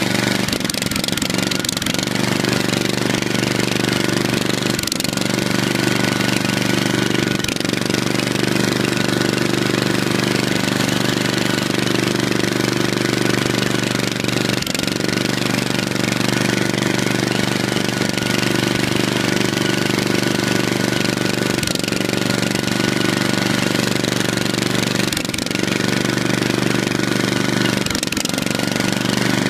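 Riding lawn tractor's small engine running steadily close by as the tractor drives over rough ground, with a few short knocks from bumps along the way.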